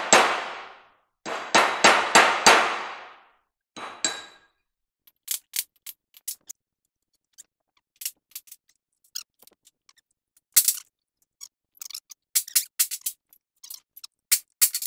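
Hammer blows on a steel drift set in a brake rotor hub: a quick series of loud, ringing metal strikes in the first four seconds, then lighter, sharp metallic clicks and taps scattered through the rest.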